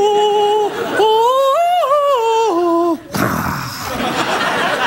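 A man sings wordless, held high 'ooh' notes that step and slide up and down in a short spooky tune. About three seconds in, the studio audience takes over, laughing and applauding.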